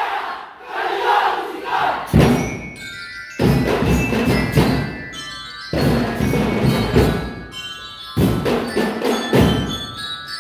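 Marching band percussion section playing: hand drums and marching snare drums, with metal bell lyres ringing high melody notes over them. The music comes in passages that start sharply every two or three seconds.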